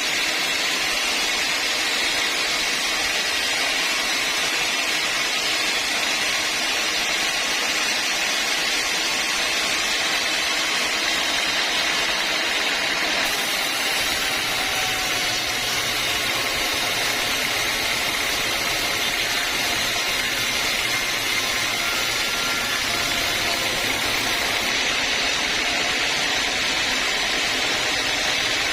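Sawmill machinery running steadily, a continuous even noise with no breaks or separate knocks.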